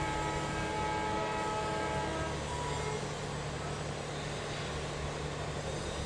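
A horn sounds one long note with several pitches at once and stops about two and a half seconds in, over a steady low rumble and hiss.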